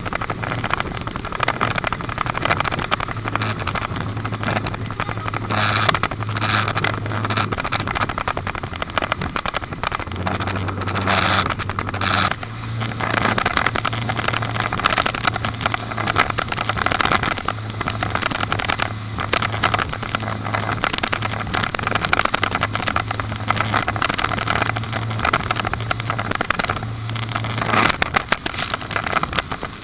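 Motorboat engine running at speed, a steady low drone under loud rushing wind and water spray; the engine note shifts briefly about ten seconds in.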